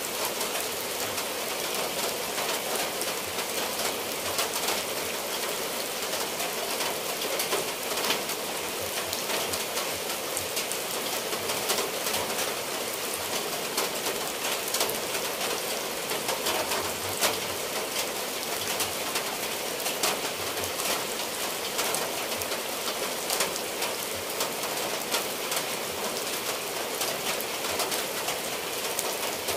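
Heavy rain falling steadily on clay roof tiles and leaves, with water pouring off the eaves and many sharp drops ticking through the steady hiss.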